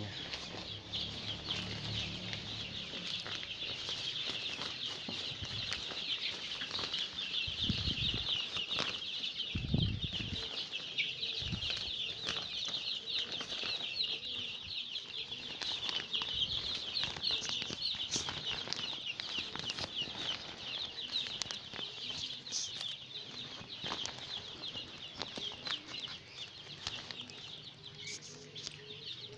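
A brooder full of young Joper chicks peeping continuously, many high, short chirps overlapping into a steady chatter. Two brief low thuds come about a third of the way in.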